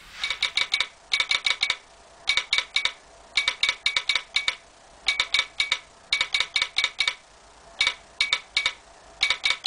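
Telegraph sounder in a wooden resonator box clicking out Morse code: quick runs of sharp, ringing metallic clicks with short pauses between them.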